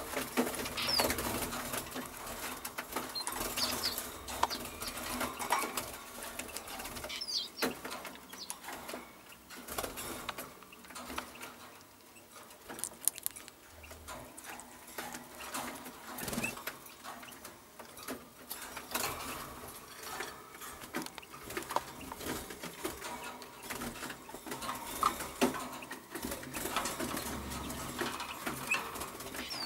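Caged songbirds: a few short, high chirps and calls scattered over frequent small clicks, taps and rustles.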